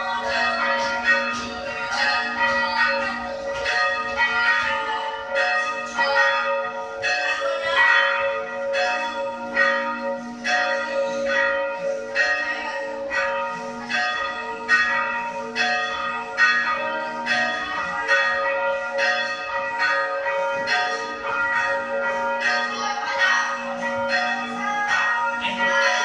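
Church bells rung by hand from ropes, pealing continuously: about two or three strikes a second over the bells' lingering hum.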